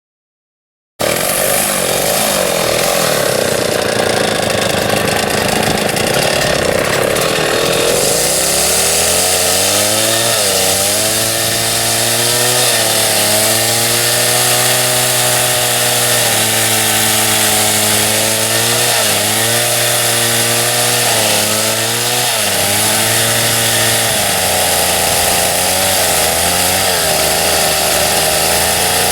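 Chainsaw running, cutting in abruptly about a second in at high revs, then settling to a lower pitch that repeatedly dips and recovers, as the engine loads and unloads while cutting through tree wood.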